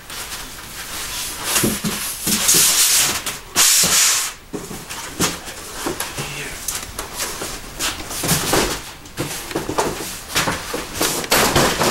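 Cardboard packaging being handled and moved: rustling, scraping and scattered knocks, with a louder stretch of rushing scrape about two to four seconds in.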